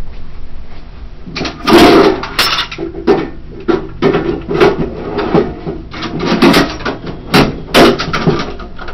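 Hand-handled gear clattering: a run of irregular knocks and bumps as objects are picked up, moved and set down, starting about a second and a half in.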